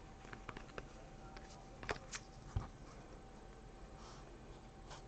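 Faint clicks and light ticks of a stack of baseball cards being handled and thumbed through, a few scattered taps with the two clearest about two and two and a half seconds in.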